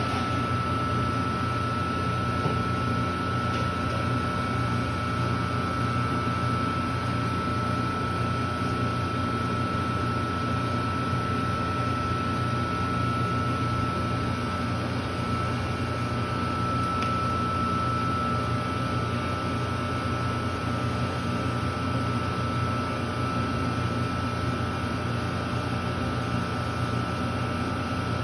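Taylor C723 twin-twist soft-serve machine running: a steady mechanical hum with a thin, steady high whine over it.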